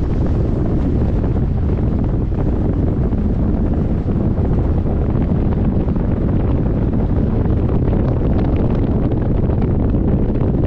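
Wind buffeting the microphone at the open window of a moving vehicle, over the steady rumble of the vehicle driving on a gravel track, with faint crackles from stones under the tyres.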